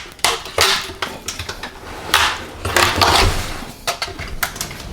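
A quick run of clicks and knocks from things being handled, with two longer scraping or rustling sounds in the middle.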